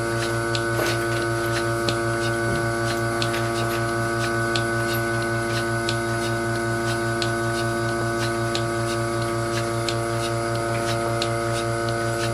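Surge bucket milker running: the vacuum pump hums steadily while the pulsator on the bucket lid clicks in a regular rhythm as the teat cups milk the cow.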